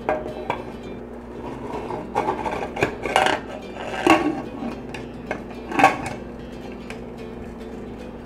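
Metal pressure cooker lid being fitted inside the pot and turned into place: scraping and clinking of metal on the pot's rim, with several louder clanks, the loudest about four seconds in and again just before six seconds.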